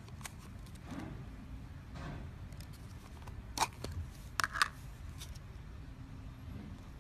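Slime being handled: a few short, sharp clicking pops over a low steady hum. The loudest come about three and a half seconds in and in a quick cluster of three a second later.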